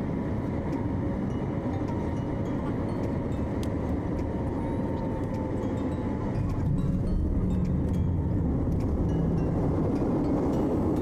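Airliner cabin noise inside a Boeing 737 MAX: the steady rush of its CFM LEAP-1B engines and airflow, with a thin whine that slowly falls in pitch. About six and a half seconds in, the noise grows louder and deeper.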